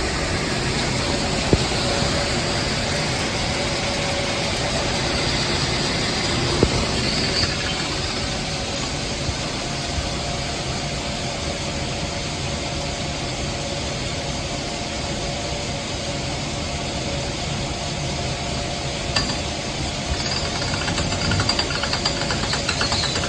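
Combine harvester running steadily: a dense, even machinery drone with a faint steady whine.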